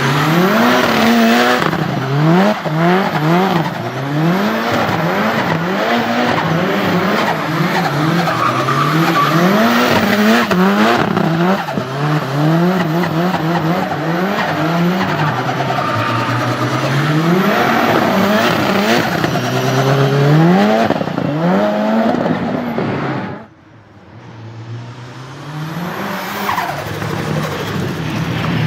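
Turbocharged Nissan 200SX drift car, its engine revving up and falling back over and over while the tyres skid and squeal. About 23 seconds in the engine sound drops away sharply, then the revs build again.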